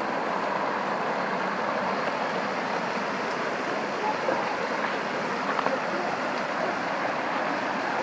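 Steady rush of stream water flowing over rocks.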